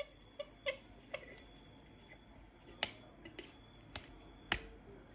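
Small plastic and metal parts of a scale model bus clicking and tapping together as gloved fingers press them into place: about ten sharp, irregular clicks, the loudest near three seconds and four and a half seconds in.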